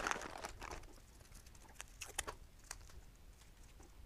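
Hands at work during a motorcycle wheel balance: a rustle over the first second, then scattered light clicks and taps.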